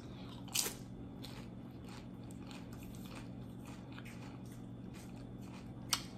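Close-miked crunching of a loaded tortilla-chip nacho being bitten and chewed: a loud crisp crunch of the bite about half a second in, then a run of softer chewing crunches. Another sharp crack comes near the end.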